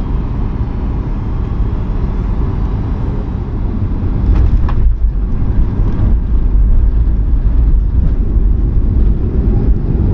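Steady low rumble of a Boeing 737 MAX cabin in flight, getting louder about four seconds in, where a brief knock is heard.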